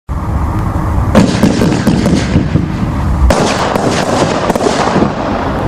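594 Fanfare firework shots launching and bursting. Sharp reports come about a second in and again after three seconds, each followed by a spread of rapid crackling pops over a low rumble.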